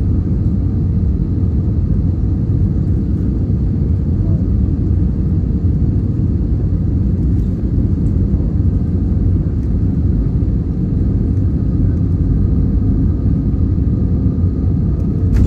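Airbus A320neo landing rollout heard from inside the cabin: a steady, heavy low rumble from the wheels on the runway and the Pratt & Whitney geared turbofan engines, with a faint steady hum above it.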